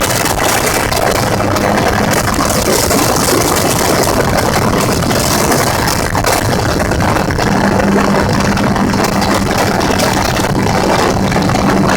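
Gyrocopter engine and propeller running steadily, under a loud, even rush of noise; a steady hum grows stronger about halfway through.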